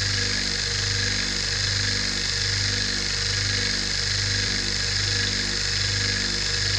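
Electric vacuum pump running steadily, pulling suction for a vacuum filtration: an even mechanical hum with a slow, regular throb, under a constant hiss.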